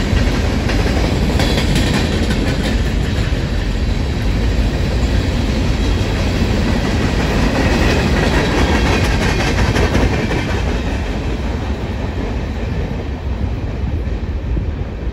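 BNSF freight train of double-stack containers and boxcars rolling past at track side, a steady loud rumble of cars and wheels on rail. It thins out and fades near the end as the last cars move away.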